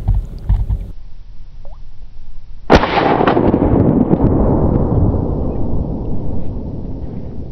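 A single shotgun blast about three seconds in, fired at a duck flying overhead, followed by a long rumbling tail that slowly fades over several seconds.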